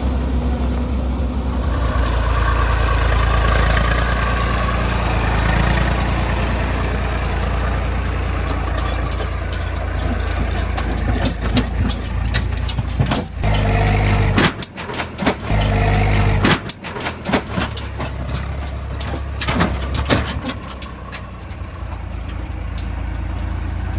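Heavy farm diesel engine running steadily, with a run of sharp clanks and knocks through the middle.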